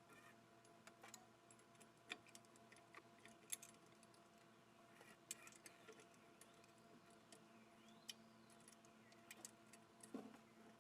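Faint, irregular clicks and light taps over a low steady hum.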